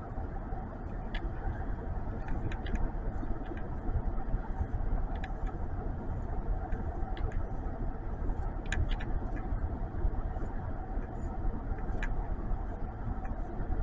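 Steady low hum of a running car heard inside its cabin, with a few light clicks scattered through, like controls being pressed.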